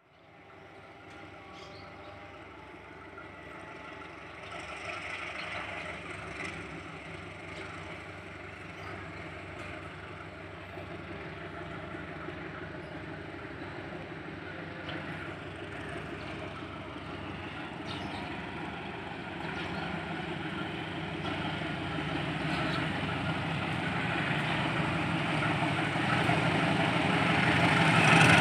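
A CC 201 diesel-electric locomotive, a GE U20C type, approaches hauling a train of passenger coaches. Its diesel engine runs steadily and grows gradually louder as it nears.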